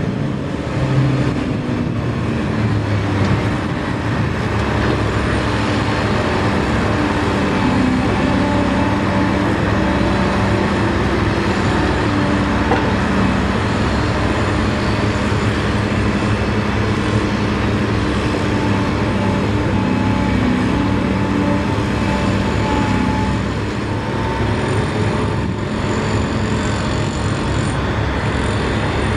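Heavy diesel engines of construction machinery running under load, chiefly a road-rail wheeled excavator working and driving, with the engine note rising and falling several times as it revs.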